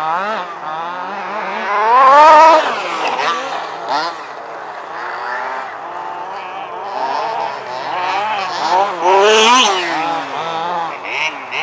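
Small two-stroke petrol engines (23 to 29.5 cc) of 1/5-scale HPI Baja buggies revving up and down as they race, several running at once. The loudest passes come about two seconds in and again near nine and a half seconds, pitch climbing then falling away.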